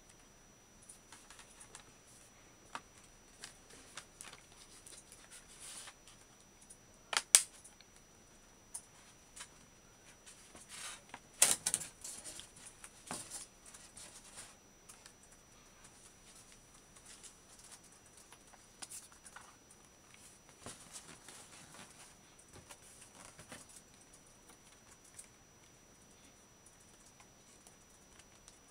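Hard plastic crystal shell case being handled and snapped onto a MacBook Air 11-inch: scattered light plastic clicks and taps, with two louder snaps about seven and eleven and a half seconds in.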